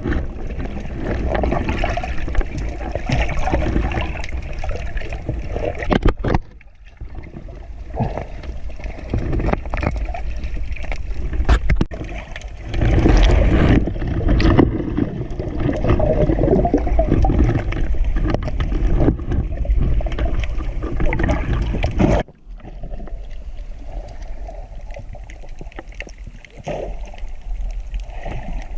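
Rough seawater churning and sloshing in heavy surf, a dense rushing and gurgling that drops off abruptly twice, about six seconds in and again near twenty-two seconds.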